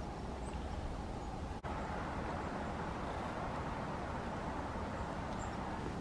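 Steady outdoor background noise: a low rumble and hiss with a faint steady hum, a few faint short high chirps, and a brief dropout about one and a half seconds in.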